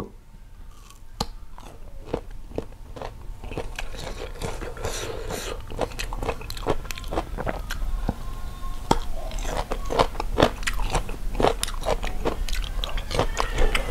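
Close-up biting and chewing of crisp raw sour fruit, green mango among it: a run of sharp, wet crunches that comes thicker in the second half.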